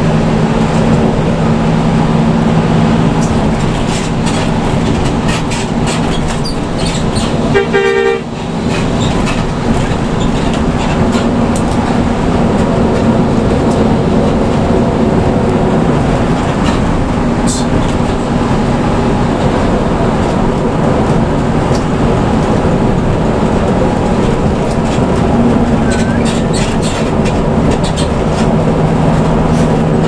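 Hino RK bus's diesel engine and road noise heard from inside the cabin at highway speed, a steady low hum. About eight seconds in, a horn sounds one short blast.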